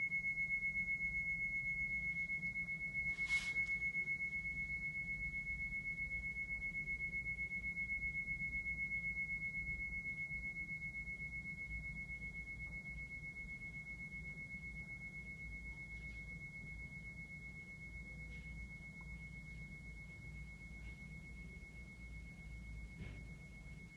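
Flat plate bell ringing in a resonator: one clear, high, sustained tone that wavers slightly and slowly fades. A brief knock sounds about three seconds in.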